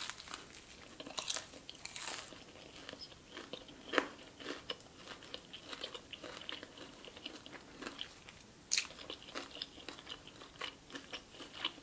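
Close-up biting, crunching and chewing of snow cheese–coated Korean fried chicken. Irregular crisp crunches run throughout, with the sharpest about four seconds in and again near nine seconds.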